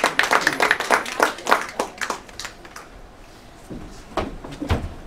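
Small audience clapping after a song, dying away about two and a half seconds in, followed by a few dull thumps near the end.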